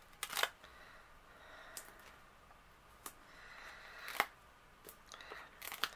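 Faint handling of card: a handful of short clicks and taps as foam adhesive dots are peeled from their backing sheet and pressed onto the back of a card panel, the sharpest about four seconds in.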